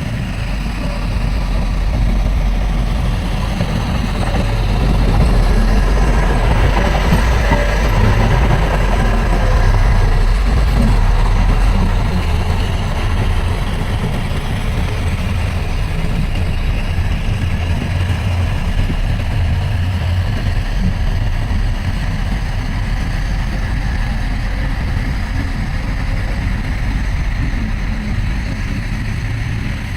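Heavy earthmoving machine's diesel engine running continuously with a deep rumble, a little louder for the first several seconds, then steady.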